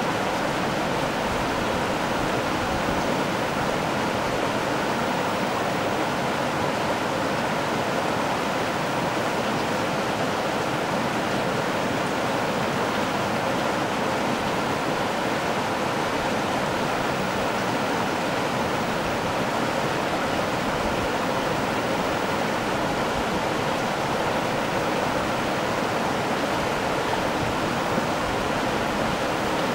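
Creek water bubbling and churning steadily where it boils up from below beside a boulder in a shallow pool, mixed with the rush of the stream.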